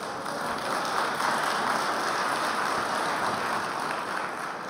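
Audience applauding: dense clapping that swells over the first second, holds steady, and begins to die away near the end.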